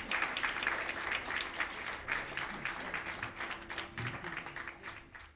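Audience applause, many hands clapping, thinning out and fading away near the end.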